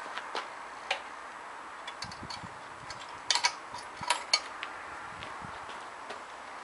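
Scattered light clicks and taps from hands working on a stationary BSA B40 trials motorcycle, with a sharper cluster of clicks about halfway through; the engine is not running.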